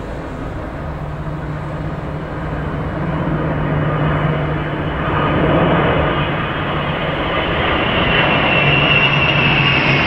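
Large military jet aircraft flying low overhead: steady jet engine noise that grows louder through the passage, with a high turbine whine rising over it in the last few seconds.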